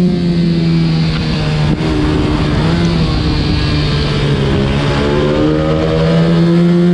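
125cc racing minibike engine running hard at high revs on track, heard from the onboard camera. The note holds high and steady, dips slightly about two seconds in, then climbs steadily through the second half as the bike accelerates.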